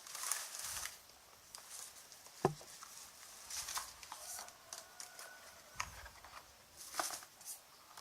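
Handling noises from unboxing: intermittent rustling and scraping of packaging, with a sharp click about two and a half seconds in.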